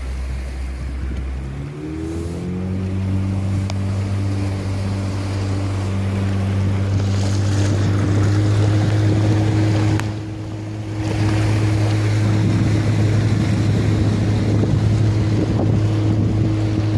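Motorboat engine throttling up about two seconds in, its pitch rising, then running steadily under way, with water rushing and splashing along the hull and wind on the microphone.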